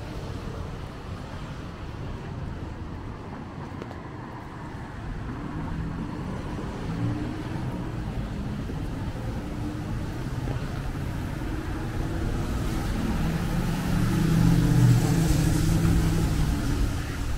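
Road traffic on a wet city street: a passing motor vehicle's engine hum builds from about five seconds in and is loudest near the end, over a steady low rumble, with a faint tyre hiss on the wet pavement as it goes by.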